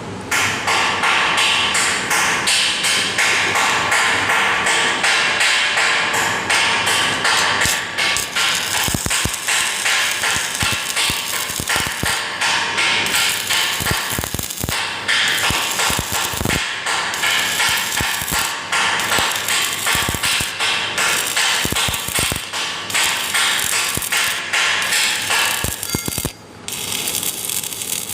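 Stick (SMAW) welding arc crackling steadily as an electrode burns, a dense frying-like crackle that starts abruptly and drops out briefly near the end before catching again.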